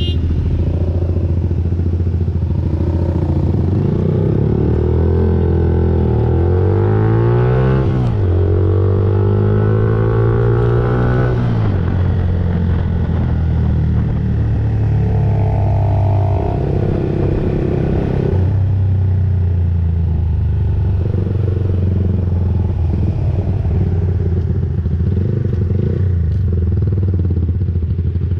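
Motorcycle engine heard from the rider's own bike: running steadily, then accelerating away with its pitch climbing through two gears, with a shift about eight seconds in. After that it eases off and runs steadily at low road speed.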